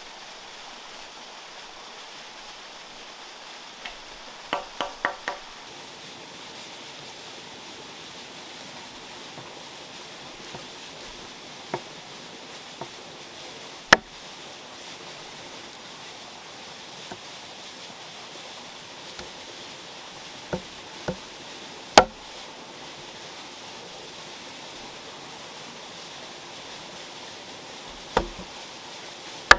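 Hand-tool work: sparse, irregular sharp knocks over a steady background hiss. About four to five seconds in comes a quick run of four ringing taps, and single louder strikes follow, the loudest about two-thirds of the way through.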